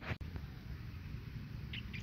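Quiet outdoor ambience: a steady low rumble, a sharp click right at the start, and two or three short high chirps about three-quarters of the way through.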